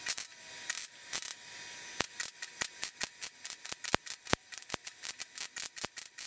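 Wire-feed (MIG) welder arc crackling and popping in short bursts while stress cracks in a steel seat pan are welded up.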